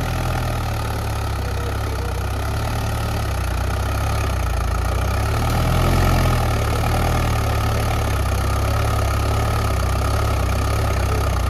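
Swaraj 843 tractor's diesel engine running steadily, a little louder about six seconds in.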